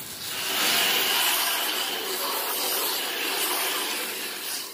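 Garden hose spray jetting water against an aluminum pontoon tube and its trailer: a steady hiss of spray that starts just after the beginning, rinsing off the cleaner.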